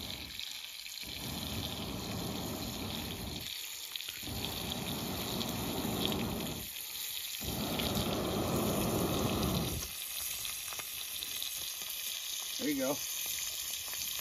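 Pocket bellows (a metal blow tube) blown into campfire coals to bring them up: three long rushes of air, each about two and a half seconds, with short breaks for breath between. Underneath, bacon sizzles steadily in a pan on the fire.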